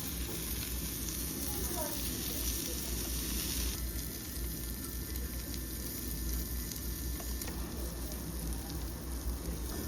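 Pork sizzling and crackling on a tabletop barbecue grill; the high sizzle eases a little about four seconds in.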